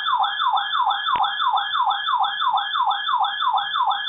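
Electronic weather radio alert alarm: a warbling tone sweeping up and down about four times a second, sounding to signal an incoming flash flood warning. A short click sounds about a second in.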